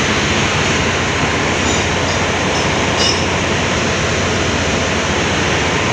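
Loud, steady machinery noise of a ship's engine room: a continuous rumble and hiss with a low, even hum underneath.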